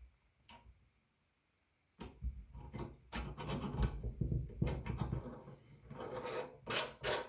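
Handling noise from the anti-glare lamp's parts: a couple of seconds in, irregular knocking and rattling starts, and near the end it turns into a quick regular run of clicks, about five a second.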